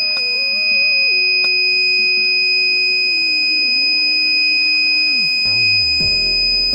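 Alarm buzzer of an ESP32 flame-sensor fire alarm sounding one continuous, steady high-pitched tone: the alarm has been triggered by a detected flame.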